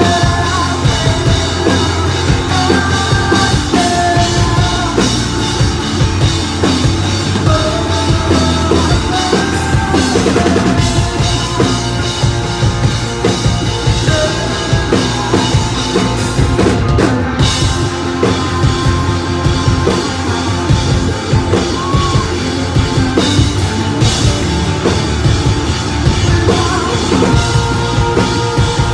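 Live rock band playing a song, with a drum kit keeping a steady beat.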